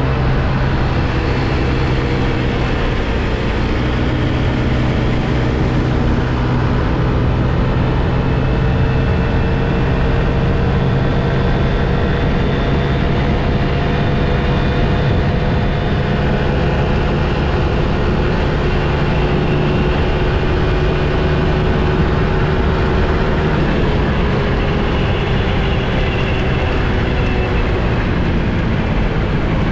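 Small motor scooter's engine running steadily at cruising speed, with loud wind rush over the microphone.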